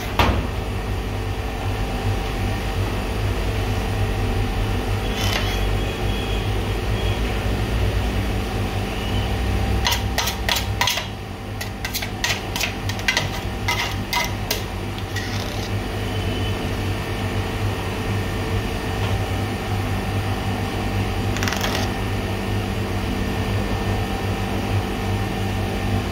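Gelato batch freezer running with a steady mechanical hum as the churned gelato is pushed out of its front chute. A cluster of sharp clicks and knocks comes about ten to fifteen seconds in, from a spatula striking the steel chute and pan, with a few single knocks elsewhere.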